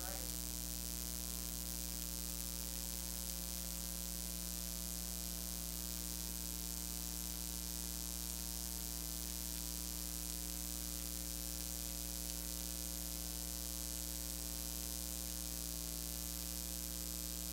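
Steady electrical mains hum with its stack of overtones, over a constant hiss, with no other sound and no change throughout.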